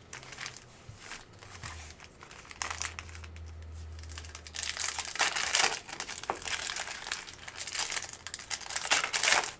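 Plastic wrapping on trading-card packaging crinkling as it is handled and opened, in irregular crackles that grow denser about halfway through. A faint low hum sits under the middle part.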